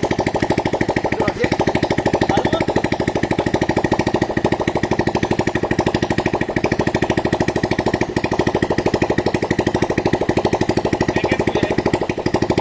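Engine of a log-hauling winch running steadily with a rapid, even chugging beat.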